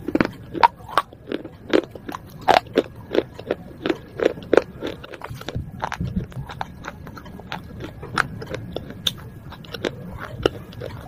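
Baked clay pot shards being bitten and chewed, with sharp, brittle crunches a couple of times a second that thin out around the middle.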